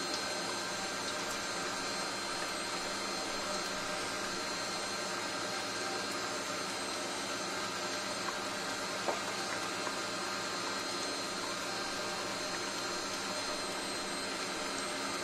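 Kenwood Chef XL stand mixer running steadily, its wire whisk beating eggs and sugar in the steel bowl: an even motor whine and whisking noise, with a couple of faint ticks about eight and nine seconds in.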